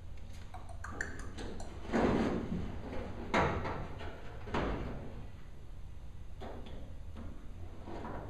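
Pneumatic 3X rivet gun driving rivets into the aluminium wing skin of a Van's RV-7, in a few short loud bursts about a second apart around the middle, with lighter clicks and taps before and after.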